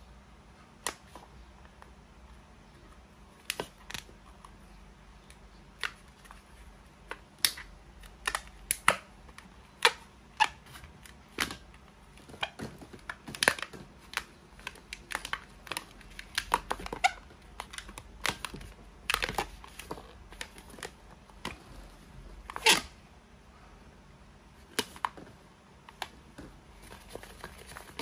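Inflated latex modelling balloon being twisted and handled by hand: scattered short squeaks and rubbery clicks at irregular intervals, the loudest about 13 s and 23 s in.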